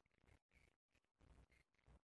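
Near silence: only a faint background hiss with a few brief dropouts.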